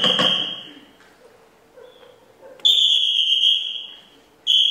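A high-pitched ringing tone, struck sharply and fading away over about a second, sounds three times: once at the start over a short clatter of knocks, then again about two and a half seconds in and near the end.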